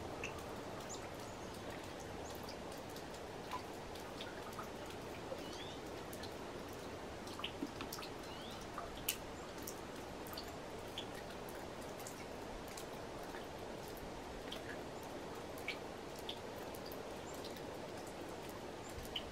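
Quiet outdoor ambience: a steady low hiss with scattered faint ticks and a few short high chirps throughout.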